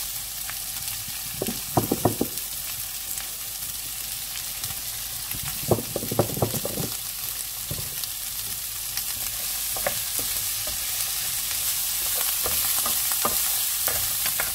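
Diced zucchini sizzling in olive oil in a frying pan, a steady hiss. There are two short clusters of sharp taps and knocks, about two and about six seconds in. Near the end a wooden spatula stirs the pieces and the sizzle grows a little louder.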